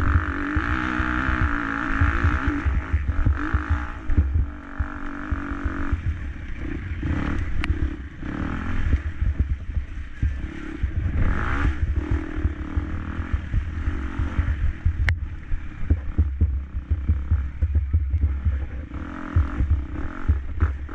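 KTM 250 SX-F motocross bike's 250 cc four-stroke single-cylinder engine racing, its revs rising and falling again and again. Two sharp clicks, about eight and fifteen seconds in.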